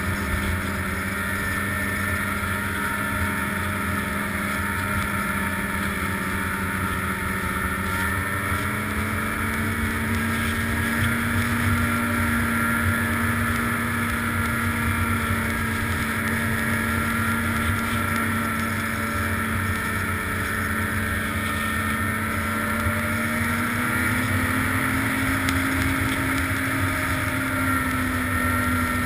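Snowmobile engine running steadily while riding, its pitch climbing a little about a third of the way in and again near the end, with wind noise on the microphone.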